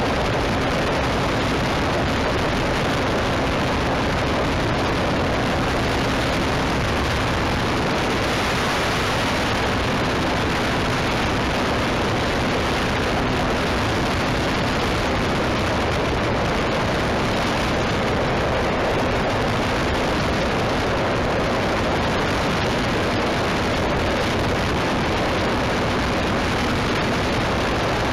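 Wind rushing steadily over the microphone in flight: a constant, even hiss with a faint steady hum underneath.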